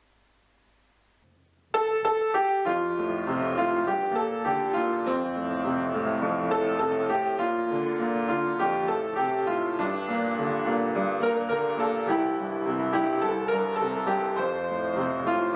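Upright piano played solo, starting abruptly about two seconds in after near silence and going on at an even level.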